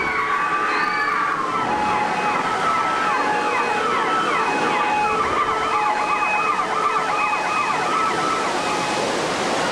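Several emergency-vehicle sirens sounding over one another in a ride's simulated earthquake disaster effects: slow wails at first, then fast repeated yelping sweeps, over a continuous rushing noise.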